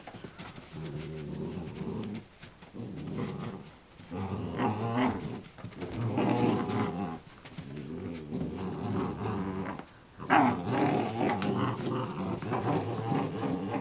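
Two ten-week-old Alaskan Malamute puppies growling as they play-fight, in stretches broken by short pauses, with a louder, higher yelp about ten seconds in.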